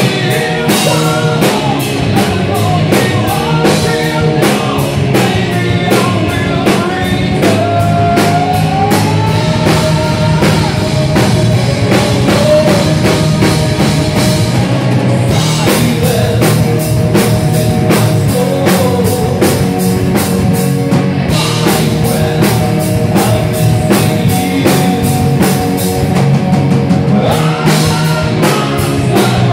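Metal band playing live: fast, driving drums, distorted guitar and bass, with a singer's vocals sustained and gliding over the top.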